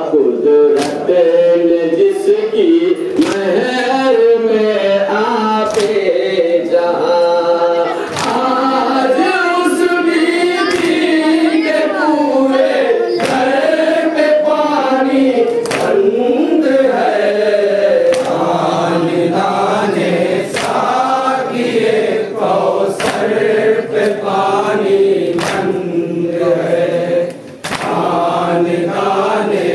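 A noha recited in chorus by a group of mourners, a continuous unaccompanied chant that rises and falls in a melody. Sharp strikes land every second or two, and the chant breaks off briefly near the end.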